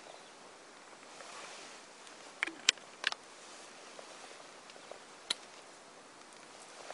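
A few sharp clicks from a bottle being capped and handled while pancake mix is made up, about four close together just before the middle and one more a couple of seconds later, over faint rustling.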